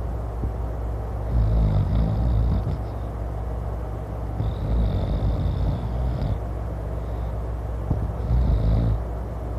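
A man snoring loudly: three long snores, each one to two seconds, about three seconds apart, over a steady low background hum.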